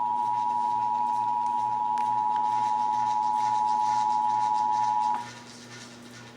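Emergency Alert System attention signal: two steady tones sounding together, which cut off sharply about five seconds in. It is the alert tone that comes before a broadcast emergency alert message, here a required monthly test.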